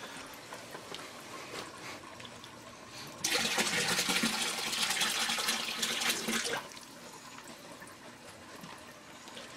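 Water and a batch of goldfish poured into an aquarium: a splashing gush into the tank water that starts about three seconds in, lasts about three seconds and cuts off suddenly.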